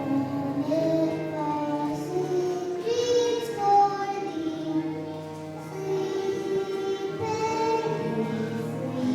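Kindergarten and first-grade children singing a song together over a musical accompaniment with steady held low notes.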